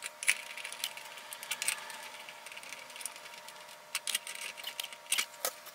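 Irregular light clicks and taps of bolts and a hex key working against a 3D-printed plastic swivel plate as it is screwed onto the back of a monitor.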